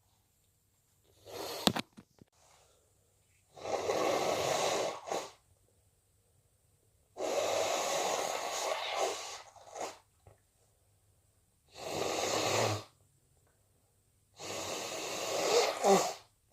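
Person with a cold sneezing and blowing their nose: five loud, noisy blasts a few seconds apart. The first is short and sharp, and the rest last one to two seconds each.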